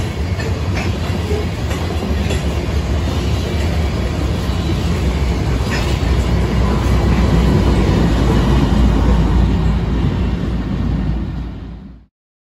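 Freight train of covered hopper cars rolling past, with a steady low rumble and occasional wheel clicks over the rail joints. The train ends with the rear distributed-power locomotive, a GE Dash 9 diesel, passing under power. The sound fades and cuts off near the end.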